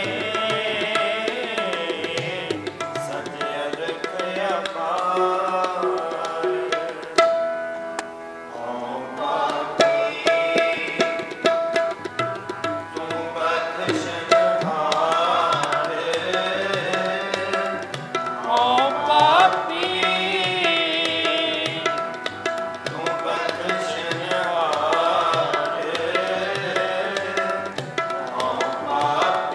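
Sikh shabad kirtan: men's voices singing with harmonium accompaniment and a steady tabla rhythm. The singing breaks off briefly about seven seconds in while the harmonium holds its notes.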